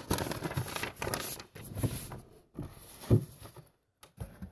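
Rustling and light knocking of packaged items being handled in a cardboard shipping box, with one louder knock about three seconds in.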